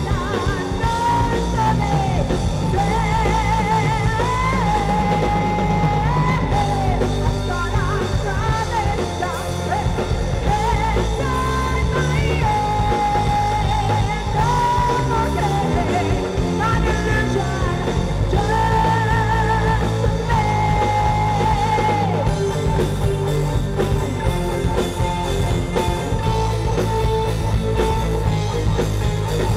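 Live rock band playing, with a singer holding long notes with vibrato over guitar and keyboards. The voice drops out about two-thirds of the way through and the band plays on.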